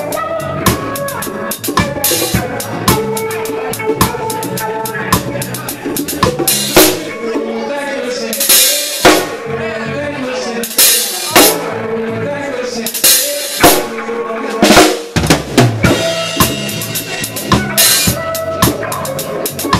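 Live reggae band heard from right beside the drum kit: the drums are up front, with snare and rimshot hits over the bass drum, and cymbal crashes ring out several times in the middle as the low end of the band thins out for a few seconds.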